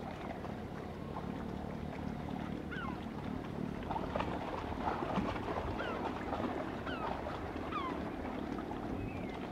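Wind and water noise with a low steady engine hum, and a bird giving short, falling calls over and over from about three seconds in.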